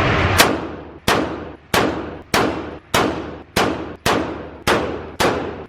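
FN pistol fired in a steady string of about nine shots, a little over half a second apart, each ringing out in the range's echo, emptying the last rounds of the magazine.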